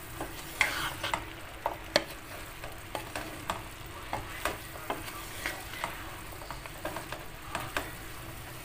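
Wooden spatula stirring whole okra pods through a simmering meat and tomato sauce in a stone-coated frying pan: irregular knocks and scrapes against the pan over a steady sizzle.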